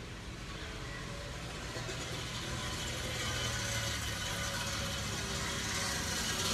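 A car approaches and grows steadily louder, its engine running with a hiss that builds toward the end. It is dragging its tailpipe along the road.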